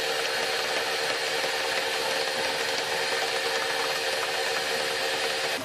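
Electric meat grinder running steadily with an even motor hum and whir as it minces cooked pork and vegetables. It cuts off near the end.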